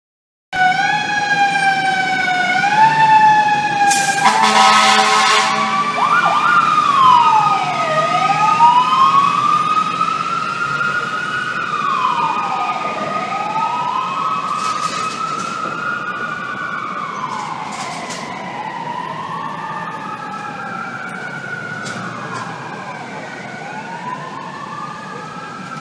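Fire truck sirens: a quick, repeatedly rising siren at first, a loud horn blast about four seconds in, then a slow rising-and-falling wail about every five seconds over a steadier siren tone that slowly drops in pitch. The sound gradually fades as the trucks move off.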